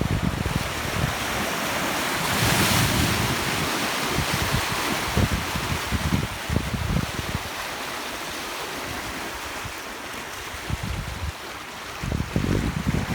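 Steady rushing of a swollen river in flood after a typhoon, with wind buffeting the microphone in low gusts.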